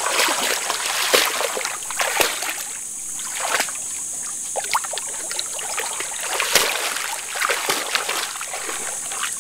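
A dog wading in shallow floodwater, with irregular splashing and sloshing as it noses a floating dead armadillo. A steady high hiss runs behind it.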